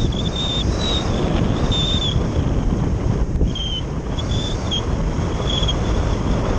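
Strong wind buffeting the microphone of a camera mounted on a Phase 6 radio-controlled glider in flight, a steady dense rush of air. Short high whines come and go over it every second or so.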